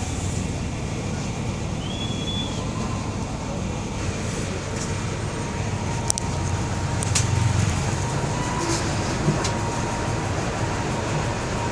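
Volkswagen 17.230 EOD bus running steadily, its engine and road noise a continuous low drone that swells slightly a little past the middle, with two sharp clicks about six seconds in.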